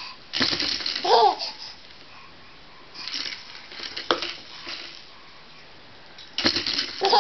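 A baby laughing in short bursts, three in all, mixed with the clatter of the plastic rings on a Lamaze suction-base highchair toy as he bats it.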